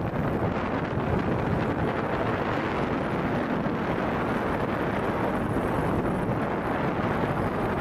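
Steady rushing wind noise from aircraft in flight, even throughout with no distinct engine tone or sudden sounds.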